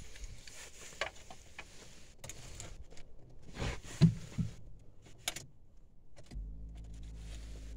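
Car key jangling and clicking as it goes into the ignition lock of a Skoda Fabia 1.2 HTP, with a few knocks about four seconds in, the loudest of them a single thump. About six seconds in the ignition is switched on and a steady low electric hum starts up; the engine is not yet running.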